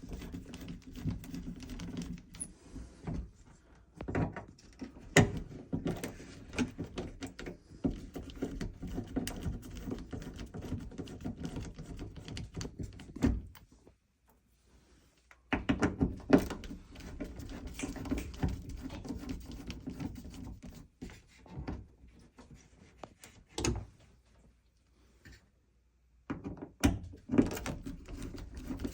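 Clicks, knocks and rattles of hand work on a sauna control panel: a screwdriver working its Phillips screws and the panel being handled. The noise stops briefly twice along the way.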